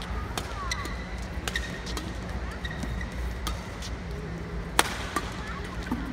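Badminton rally: rackets striking the shuttlecock with sharp pops about once a second, the loudest about three-quarters of the way through, with short shoe squeaks on the court mat, over the steady low hum of the hall.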